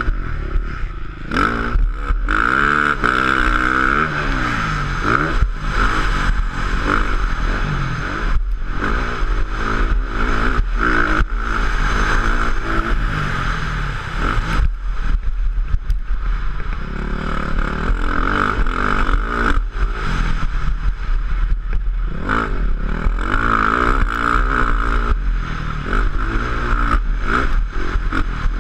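2013 KTM 450 SX-F single-cylinder four-stroke motocross engine at race pace, its pitch climbing and dropping again and again as the throttle is worked through the gears. Short knocks and rattles come through over the rough track.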